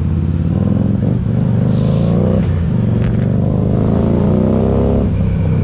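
Harley-Davidson Street 500's 500 cc V-twin, fitted with an aftermarket Vance & Hines exhaust, accelerating through the gears: the engine note climbs in pitch, dips briefly at each gear change, climbs again, then levels off near the end.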